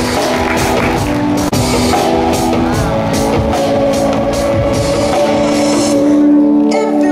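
Rock music with a drum kit and guitar. The drums stop about six seconds in, leaving sustained chords.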